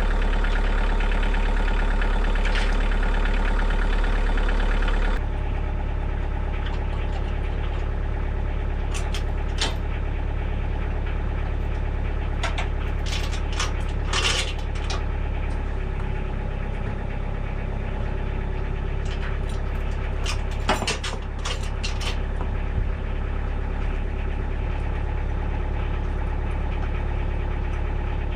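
Kioti DK40se compact tractor's diesel engine running steadily, stepping down a little in level about five seconds in. Scattered sharp clicks and knocks come over it in the middle.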